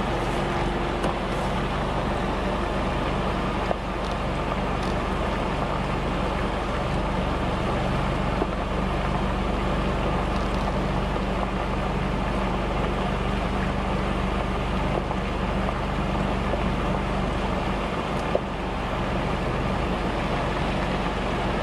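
Steady rush of muddy floodwater pouring across a highway, with the low, even hum of vehicle engines running underneath.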